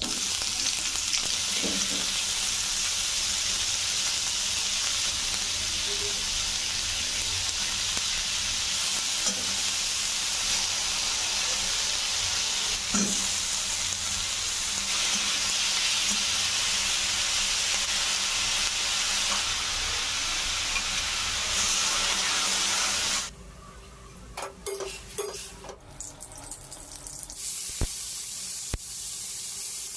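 Food sizzling as it fries in a pan and is stirred, with a few light knocks. About three-quarters of the way through, the loud sizzle cuts off suddenly, leaving quieter clicks and clinks. A softer sizzle returns near the end.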